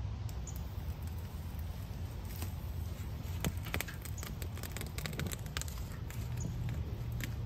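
Light clicks and crackles, bunched together in the middle, as a burning alcohol swab is pushed in among dry twig kindling in a small titanium wood stove and the kindling catches. A steady low rumble lies underneath.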